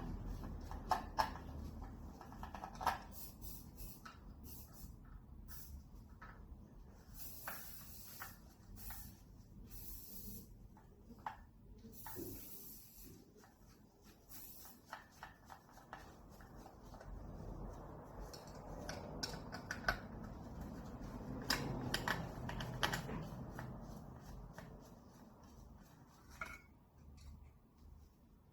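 Pool pump parts being handled and worked on by hand: scattered clicks and knocks of plastic and metal, rubbing, and a few short hissing scrapes, with a longer stretch of rubbing about two-thirds of the way through.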